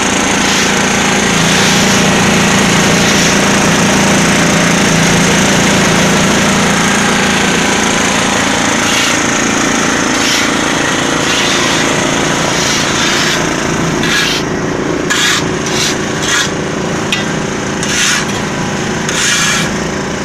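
Small diesel engine of a 280-litre concrete mixer running steadily under a gritty, rasping churn. In the last few seconds about six short, sharp scrapes cut through it at irregular intervals.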